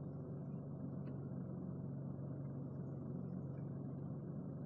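Steady low hum of a car with its engine running, heard from inside the cabin.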